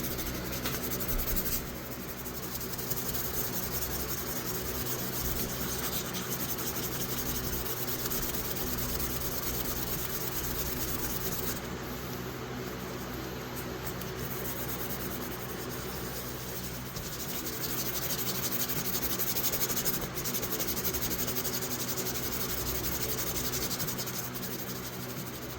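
Fine-grit sandpaper rubbed by hand on a steel pocket-knife blade, a steady scratchy rubbing that goes on without a break, over a faint low hum.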